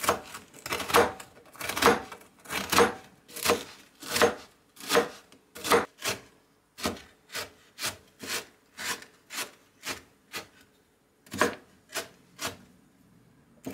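Kitchen knife chopping frozen onion on a wooden cutting board, sharp knocks about two a second. After a short break a few more chops come, then the chopping stops near the end.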